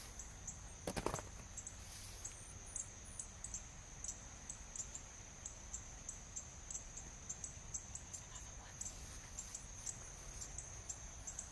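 High-pitched insect chirping: a steady trill with short pulses repeating a few times a second, with a brief bump about a second in.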